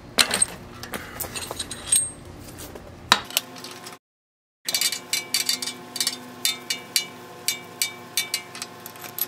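Spark plug socket being turned by hand to unscrew a loosened spark plug from a small engine, giving sharp metal clicks and clinks. After a brief cut to silence about four seconds in, the clicks come evenly at about four a second.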